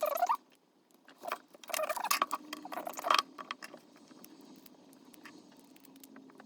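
Scratching and clicking of hands and small tools handling the metal parts of a model locomotive, in a cluster of short bursts over the first three seconds, then only faint background.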